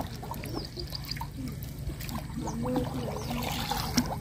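Wooden canoe paddle working the water, trickling and dripping between strokes, with a louder splashing wash about three and a half seconds in that ends in a sharp knock.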